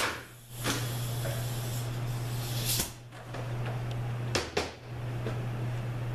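A few short knocks and clunks of metal automatic-transmission parts being handled and set down on a workbench, over a steady low hum.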